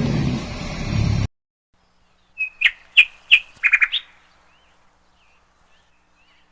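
Guitar music cuts off suddenly about a second in. Then comes a quick run of loud, high, bird-like chirps with sharp clicks, followed by a few faint short glides.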